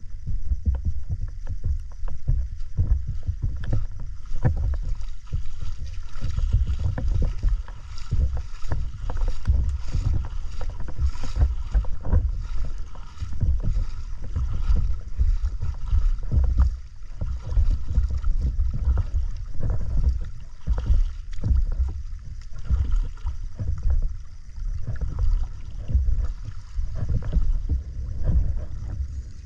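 Seawater sloshing and splashing close to the microphone as the camera is waded out through shallow water, heard as an uneven low rumble that swells and falls.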